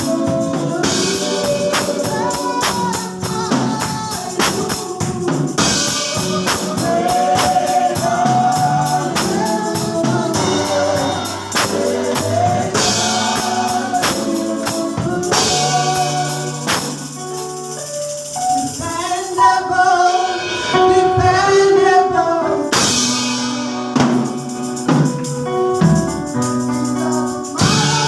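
Gospel praise-and-worship music: voices singing a melody over a drum kit, with a tambourine keeping a steady beat.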